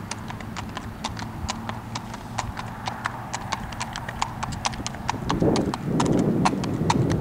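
A horse's hooves clip-clopping on asphalt at a walk, a quick, even run of sharp hoofbeats. A louder low rumble swells in over the last two seconds.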